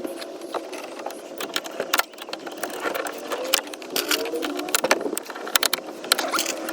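Hands working at a Land Rover Discovery's plastic interior door trim: scattered sharp clicks and knocks, with plastic creaking and squeaking as the panel and its clips are worked loose.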